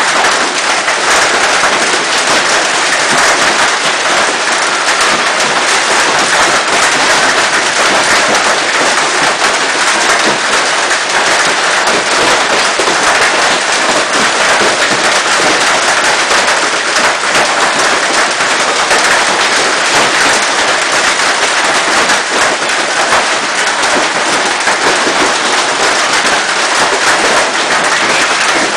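Hailstorm: hail pelting down hard, a loud, dense and unbroken clatter of countless hailstone impacts.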